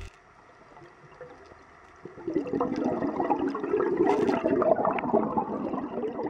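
Scuba diver's exhaled air bubbling out of the regulator, heard underwater. A faint underwater hush gives way about two seconds in to a steady run of gurgling bubbles.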